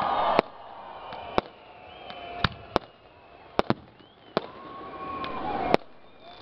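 Aerial fireworks shells bursting: about eight sharp bangs at irregular intervals, the loudest about half a second in and near the end, over a noisy hiss that swells and fades between them.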